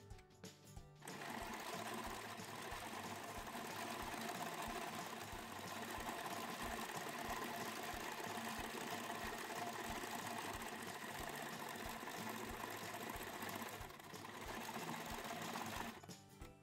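Electric domestic sewing machine running steadily as it stitches a seam through knit sock fabric. It starts about a second in, eases briefly near the end, then stops just before the end.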